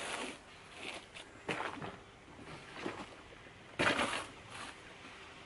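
Cardboard box flaps being opened and handled: a few short, irregular scraping rustles, the loudest about four seconds in.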